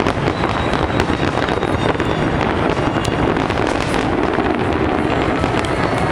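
Aerial fireworks display: many shells bursting in quick succession, a dense, continuous barrage of sharp bangs and crackles.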